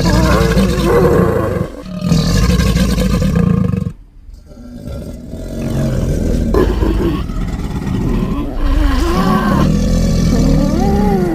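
Designed creature calls for an Eryops, mixed from crocodilian and wild boar recordings: two loud roars of about two seconds each, a short pause, then a longer roar whose pitch wavers up and down.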